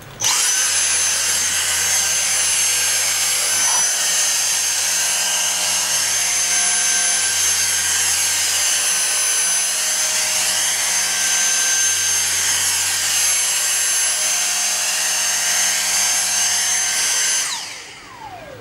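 Vacuum cleaner motor switched on abruptly, running at a steady high-pitched whine for about seventeen seconds while suctioning a futon, then switched off, its whine falling away as the motor spins down near the end.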